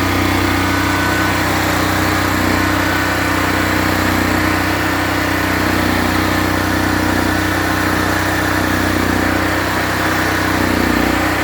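Generac portable generator's engine running steadily at constant speed, kept going with its faulty CO sensor unplugged and its fuel valve turned off, running on the fuel left in it.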